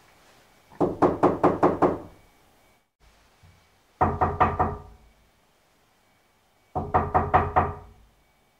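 Knocking on a wooden door: three rounds of quick knocks, about six knocks each, a second or two apart.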